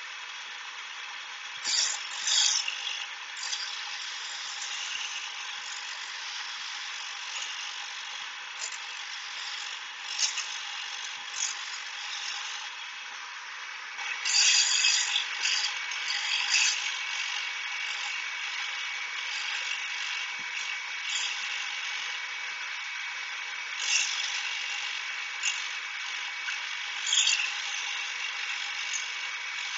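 Shopsmith Mark V running a grinding wheel, its steady machine noise throughout. A steel blade is pressed to the spinning stone in several separate passes, each a short, louder grinding rasp, the longest from about 14 to 17 seconds in. The grinding removes metal to straighten the blade's bent corners and cutting edge.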